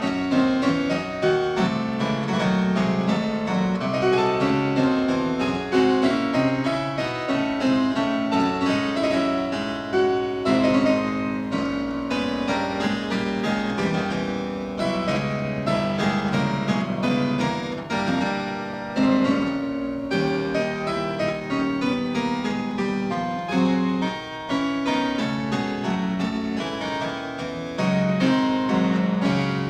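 Background classical piano music, a continuous piece of many quick notes.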